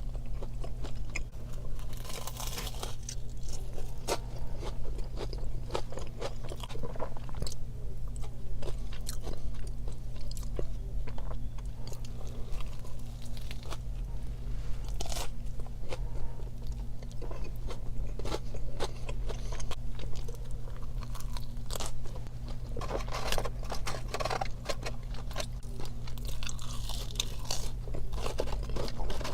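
Close-miked eating of crispy fried fast food from Raising Cane's: repeated crunchy bites and chewing, with crackling of the fried breading. A steady low hum runs underneath.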